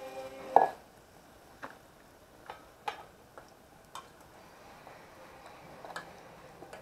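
A loud knock about half a second in, then a handful of light clicks and taps spaced irregularly a second or so apart: kitchen utensils knocking against pans or dishes.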